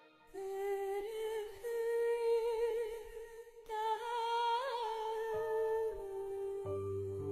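A voice humming a slow, wordless melody in long held notes, with a low bass note coming in near the end.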